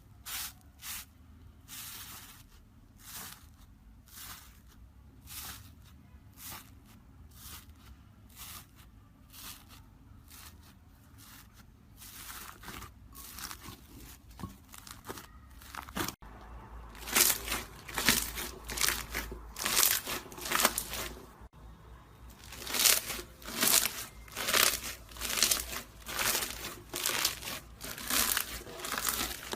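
Slime being squeezed and poked by hand, making repeated crackling, crinkling squishes about two a second, louder in the second half.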